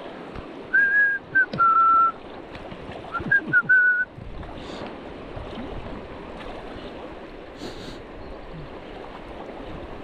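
Two short runs of clear whistled notes, loud and close, a few held notes about a second in and a quicker run of short notes about three seconds in, over the steady rush of a river.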